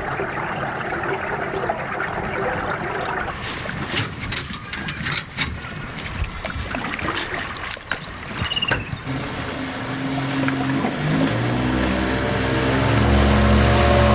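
Knocking and handling noise over a rushing haze, then a motor starts running steadily about two-thirds of the way in, its pitch stepping up and getting louder near the end.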